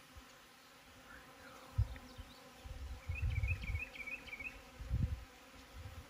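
Bees buzzing around a flowering agave, a faint steady hum. A short run of about seven quick, high bird chirps comes near the middle. A few low rumbles on the microphone are the loudest sounds.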